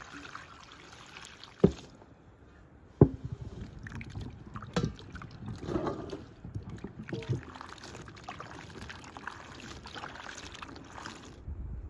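Peeled potatoes being washed by hand in a blue enamel bowl of water: water sloshing and splashing as the potatoes are rubbed and turned. Two sharp knocks come in the first few seconds.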